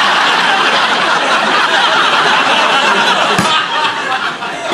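Studio audience laughing loudly, easing off after about three and a half seconds.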